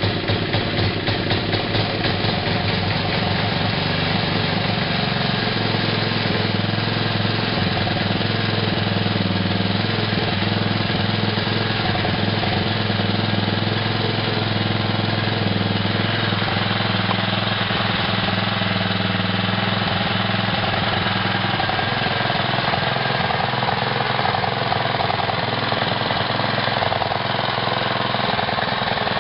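Briggs & Stratton 3 hp single-cylinder four-stroke engine on a late-1970s Rover Baron 45 rotary lawn mower, running steadily.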